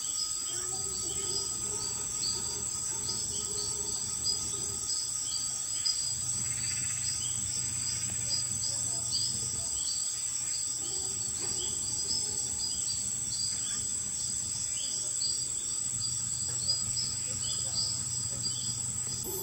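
Evening tropical jungle chorus: a steady high insect drone, many repeated bell-like chirps, and a howler monkey roaring low in the background, coming and going every few seconds.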